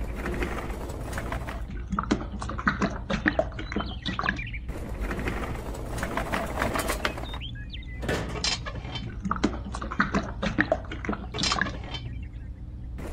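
Small clicks, knocks and wet sloshing as a toy metal wheelbarrow full of wet cement mix is handled and tipped, heard in several short cuts over a low steady hum.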